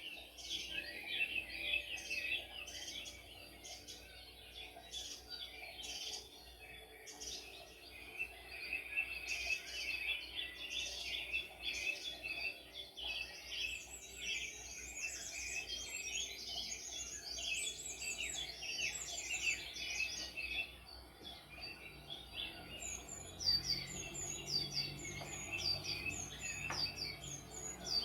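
A chorus of several songbirds chirping and singing, a dense overlapping run of short high notes. In the last few seconds one bird repeats quick falling whistles.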